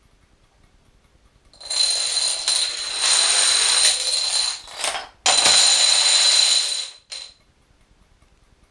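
Dominoes toppling in a chain: a dense, fast clatter that starts about a second and a half in, breaks off briefly near the middle, comes back suddenly and louder, and stops about seven seconds in.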